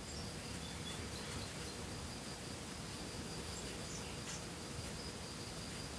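Faint room tone: a steady low hiss with a thin, high-pitched whine.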